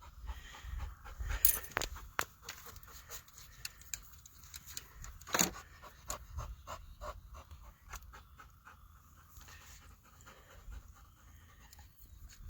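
Dog panting in quick, short breaths, with scattered small clicks and knocks, two of them louder.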